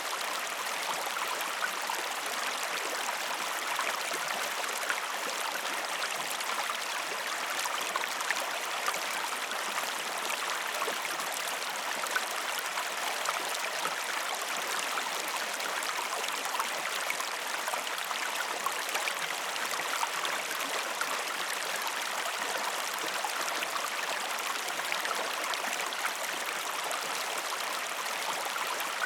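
River ambience: steady flowing water with fine bubbling and splashing detail.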